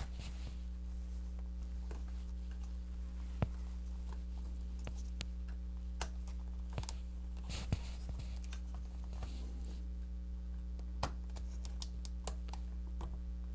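Scattered small plastic and metal clicks and taps as a laptop battery pack is handled and seated in the chassis, over a steady low hum.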